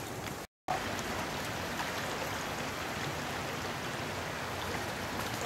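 Fast-flowing floodwater in a swollen creek running high after heavy rain: a steady rushing hiss of moving water. The sound drops out completely for a moment about half a second in, then comes back a little louder.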